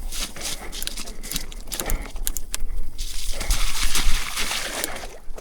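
Mountain bike riding over a wet, muddy trail: tyres splashing and sloshing through water and mud, with sharp knocks and clatter from the bike over roots and rocks.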